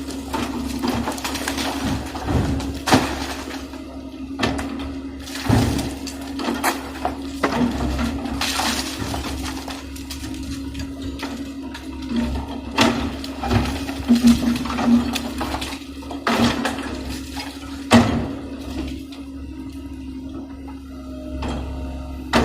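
Komatsu PC130F excavator's engine running with a steady hum while it demolishes a building, with repeated crashes and clatter of breaking building material every second or two.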